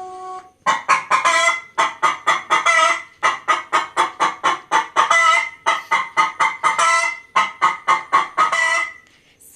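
Recording of a hen clucking: quick runs of clucks, several a second, going on for about eight seconds. A short musical tone dies away at the very start.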